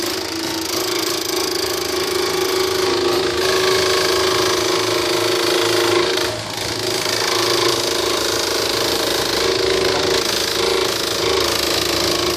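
Pandan-leaf slicing machine running steadily, a loud hum over a dense mechanical clatter, as a bundle of pandan leaves is fed in and sliced thin. The noise dips briefly about six seconds in.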